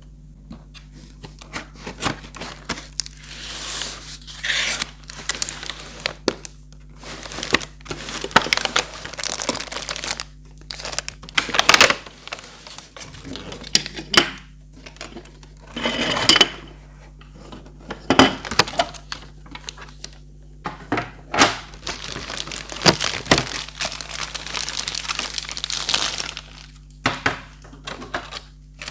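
Toy packaging being unboxed by hand: plastic and cardboard crinkling and tearing in irregular bursts, with scattered sharp clicks and knocks.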